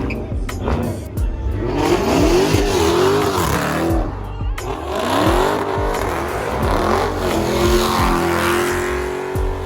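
A high-performance car engine revved hard again and again, its pitch climbing and falling with each blip, then held at high revs for about two seconds near the end. Bass-heavy music thumps underneath.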